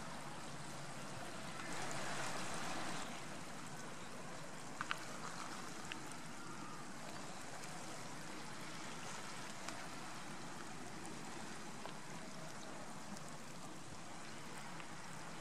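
Seawater washing and trickling around an intertidal rock pool: a steady rush of water, louder for about a second starting a couple of seconds in, with a few small clicks near five seconds.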